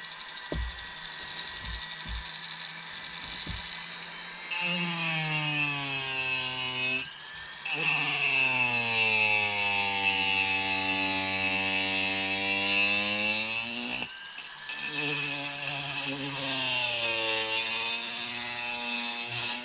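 High-speed rotary carving handpiece with a bur grinding a wood carving blank: a loud whine whose pitch sags as the bur bites into the wood and rises again as it eases off, in three long passes with short breaks about a third and two-thirds of the way through. Before it starts there are a few seconds of quieter hiss and light knocks.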